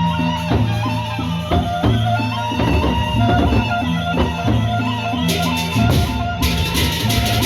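Gendang beleq ensemble playing a traditional Lombok opening piece: large barrel drums beat a busy rhythm under gong and metallophone melody. Bright clashing cymbals come in loudly near the end.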